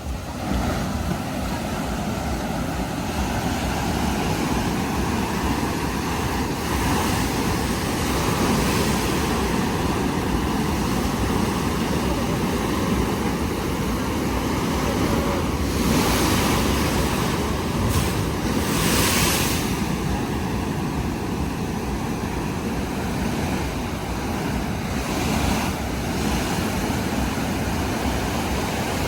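Ocean surf breaking and washing on a beach, a continuous rushing with wind buffeting the microphone. The wash swells louder about halfway through, twice in quick succession.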